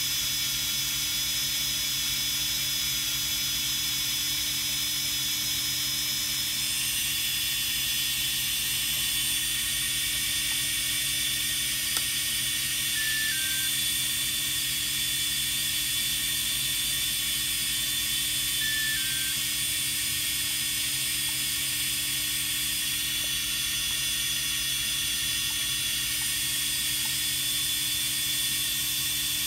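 Walkera F210 quadcopter's brushless motors spinning steadily without propellers, a high whine that holds its pitch, with a slight shift about seven seconds in. The motors run on when they should cut out, the failsafe fault.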